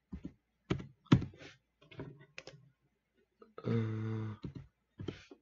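Computer keyboard and mouse clicking in a few separate, unhurried strokes while text is entered. A short hummed 'mm' from a voice comes a little past halfway.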